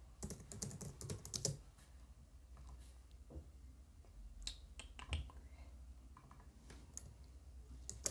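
Faint typing on a computer keyboard: a quick run of keystrokes in the first second and a half, then a few scattered single clicks.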